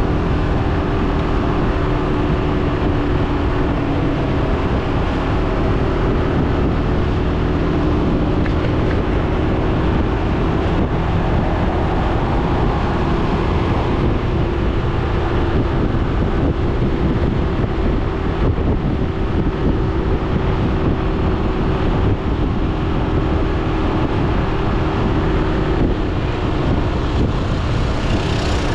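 BMW C400GT scooter's single-cylinder engine running at a steady cruise, a steady hum, mixed with wind noise on the microphone and tyre noise on a wet road.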